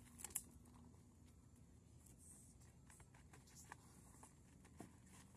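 Near silence with scattered faint clicks and rustles from a wire-mesh cat trap being handled and a camouflage cloth drawn over it. One sharper click comes shortly after the start.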